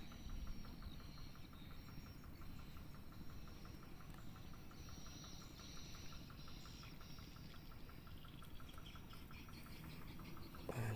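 Faint insect chirping in a fast, even pulse that runs without a break, over low outdoor background noise.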